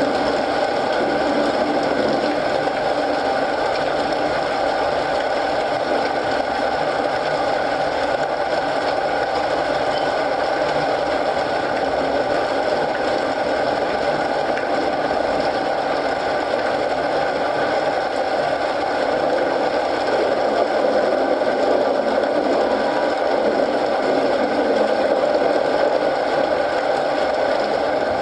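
Steady rain mixed with a crackling wood fire: a dense, even patter that does not let up.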